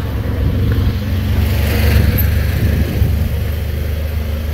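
An engine running steadily with a low hum. It swells briefly about two seconds in, then settles back.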